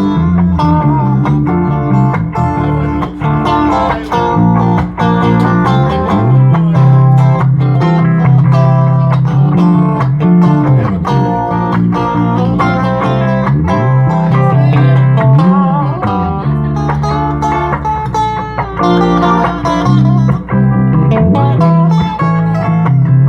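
Guitar music: plucked guitar notes over a bass line that slides up and down, playing steadily throughout.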